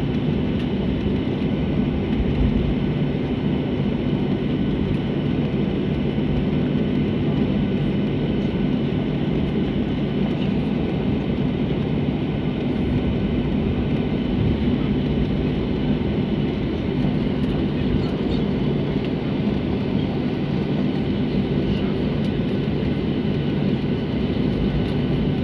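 Inside the cabin of a Boeing 737-500, its CFM56 engines run with a steady drone over a low rumble, holding the same level throughout.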